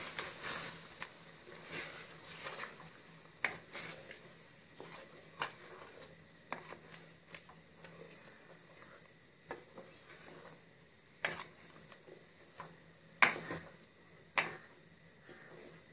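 Irregular clinks, knocks and scrapes of a utensil working in a cooking pan, a few of them sharper and louder, over a faint steady low hum.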